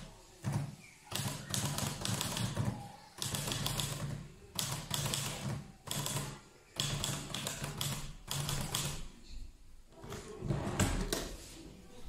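Portable manual typewriter being typed on: runs of sharp key and typebar clacks, each about a second long, broken by short pauses. The loudest clatter comes about eleven seconds in.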